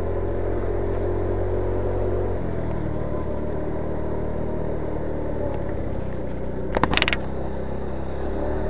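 Motor scooter engine running steadily at low speed, its tone shifting about two seconds in. About seven seconds in, a short cluster of sharp knocks rises above the engine.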